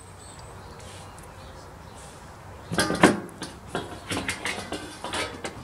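Light metallic clinks and clatter, starting about three seconds in and coming in a quick irregular run, as the screws holding the sheet-metal rear cover of a Samsung washer dryer are worked out and the panel is handled.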